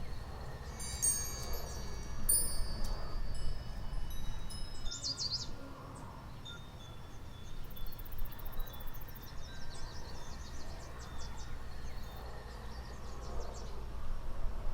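Wind chimes tinkling on and off, with clusters of high ringing tones, over a steady low rumble.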